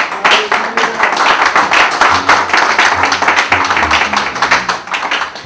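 A seated audience applauding: many hands clapping loudly and densely together.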